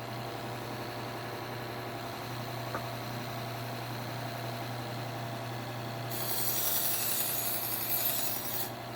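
Bucktool slow-speed bench belt sander running with a steady hum; about six seconds in a knife blade is drawn across the moving belt, adding a loud hiss for a few seconds.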